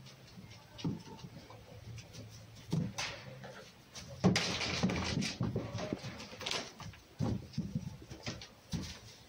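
Red fox scrambling and pouncing on straw bedding while chasing a tennis ball: scattered thumps and knocks, a sudden loud thud about four seconds in followed by a couple of seconds of rustling straw.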